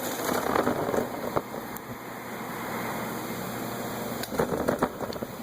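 The plastic front bumper fascia of a 2009 Chevrolet Malibu clicking and crackling as its friction-fit side clips are pulled apart by hand. There are two bursts of rapid clicks, one at the start and one near the end.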